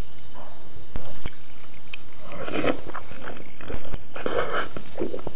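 Close-up eating sounds of jajangmyeon (black bean noodles): a few sharp clicks early on, then wet slurping of noodles into the mouth and chewing in short bursts from about halfway through.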